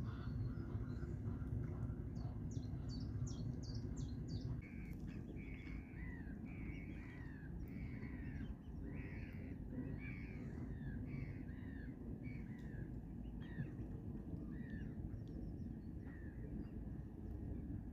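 A bird calling over and over: a quick run of short high notes, then about a dozen harsh calls that drop in pitch, roughly one a second, fading toward the end. A low steady rumble of wind or water lies underneath.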